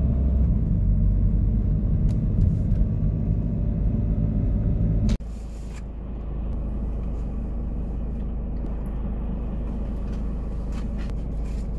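Low, steady rumble of a car heard from inside its cabin. About five seconds in it cuts abruptly to a quieter, steadier rumble.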